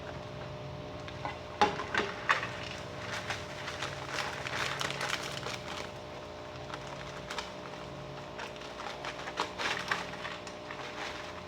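Crinkling and clicking of plastic packaging and containers being handled, in irregular bursts of short sharp crackles, busiest in the first half and again near the end.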